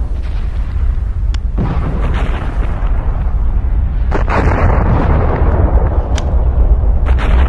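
Hunga Tonga–Hunga Haʻapai volcano erupting: a continuous deep rumble with several sharp cracks and bangs of explosions over it, the strongest about a second and a half and four seconds in.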